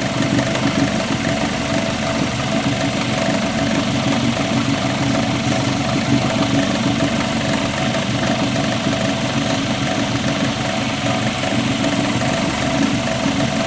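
Homemade wood lathe running steadily, its motor giving a constant hum as the bowl spins while linseed oil is applied.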